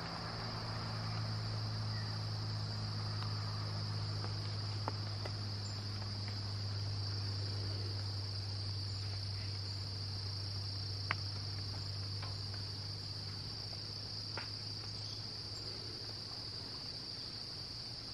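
A steady, high-pitched insect chorus, typical of late-summer crickets, runs without a break over a steady low hum. A few faint clicks sound now and then.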